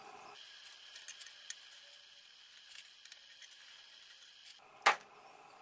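Faint small metallic clicks and taps from screws and a screwdriver being worked on the underside of a Monroe LN160X mechanical calculator's metal case, then one sharp knock near the end.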